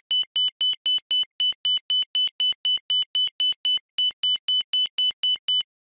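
ILS inner marker beacon audio identifier: a rapid series of short, high-pitched beeps at one pitch, about four a second, that stops shortly before the end. It signals that the aircraft is passing over the inner marker near the runway threshold.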